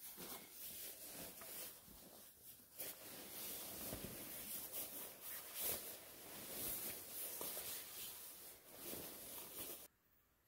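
Faint, irregular rustling and rubbing close to the microphone, made of many short scratchy strokes, which cuts off abruptly near the end.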